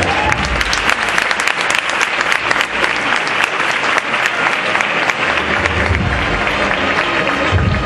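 Large crowd applauding, a dense patter of many hands clapping at once. Band music fades under it at the start and comes back in near the end.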